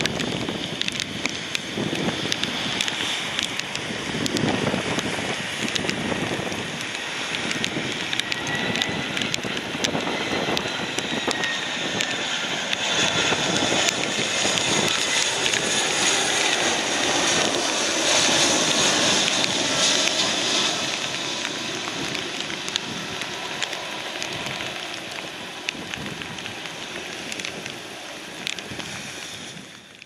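Wind and heavy rain buffet the microphone while a landing Airbus A320 airliner passes low on final approach. Its jet engine whine and rumble swell in the middle, then fade away near the end.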